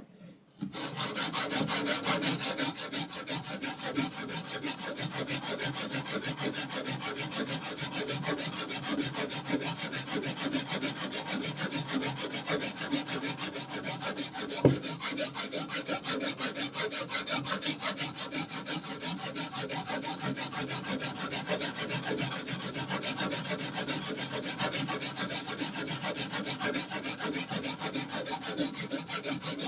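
Knife blade being stroked back and forth on a sharpening stone, a steady run of quick rasping strokes. A single sharp knock sounds about halfway through.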